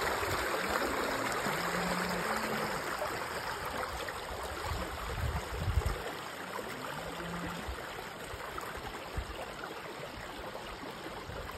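Small creek running over stones, a steady rush of water that is loudest at the start and grows fainter as it goes on. A few low thumps about halfway through.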